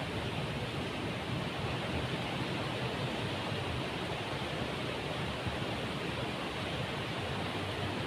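Ocean surf breaking and washing up the beach: a steady, even rush of water.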